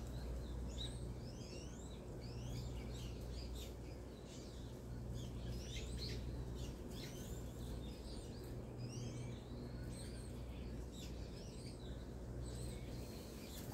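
Small birds chirping in the bushes: many short, quick calls sliding up and down in pitch, over a low steady rumble.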